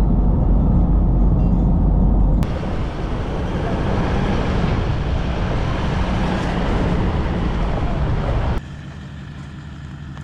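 Vehicle running noise, a dense rumble, in three cut-together stretches: loud at first, changing suddenly about two seconds in, then dropping quieter near the end.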